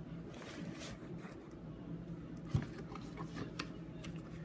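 Quiet handling noise: faint scattered clicks and light rubbing over a steady low hum, with one soft thump about two and a half seconds in.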